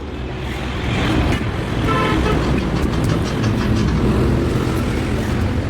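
A motor vehicle engine running, growing louder over the first second and then holding steady.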